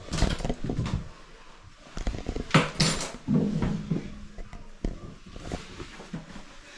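Irregular knocks, clatters and rustles, the loudest cluster about two and a half to three seconds in.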